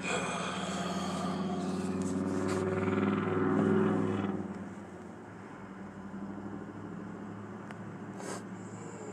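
A vehicle going past, growing louder to a peak about three and a half seconds in and fading away by five seconds, over a steady low hum.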